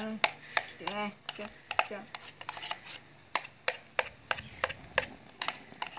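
A wooden spatula scraping blended chili paste out of a plastic bowl into a wok, making a quick run of sharp clicks and scrapes as it knocks against the bowl and the pan's rim.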